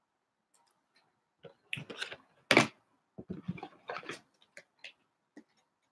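Handling noise from trading cards and packaging on a table: a cluster of short clicks, taps and rustles, with one louder knock about two and a half seconds in.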